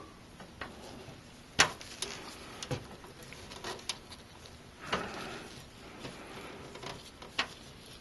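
Small, irregular clicks and taps of gloved hands working screws into a graphics card's mounting bracket at the back of a PC case, the loudest about one and a half seconds in.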